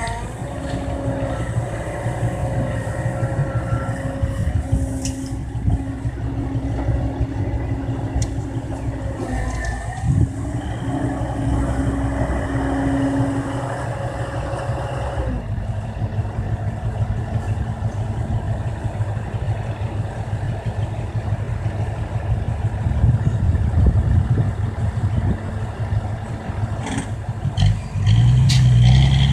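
Kobelco hydraulic excavator's diesel engine running steadily while digging, with a steady whine that shifts in pitch about halfway through and a few light clatters. The engine noise swells to a louder low rumble near the end.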